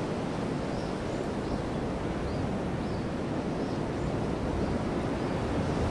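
Steady rushing outdoor ambience of wind and surf, with faint short high bird chirps repeating roughly every second.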